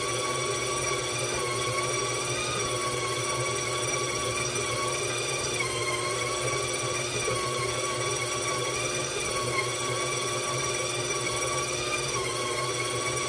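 KitchenAid stand mixer running, its motor giving a steady high whine as the dough hook kneads bread dough in the steel bowl; the pitch dips slightly now and then.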